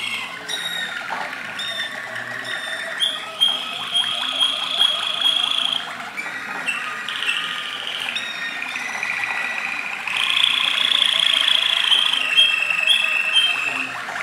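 Malinois (Waterslager) song canaries singing: long high trilled rolls held for a second or two, broken by short clear notes, with more than one bird at times.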